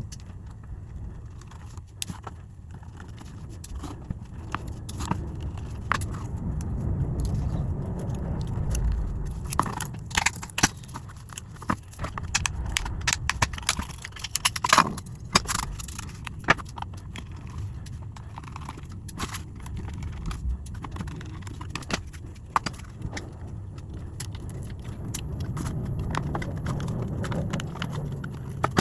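Scattered sharp clicks and taps of small hard parts and tools being handled while a Ring video doorbell is worked on, over a low, uneven rumble.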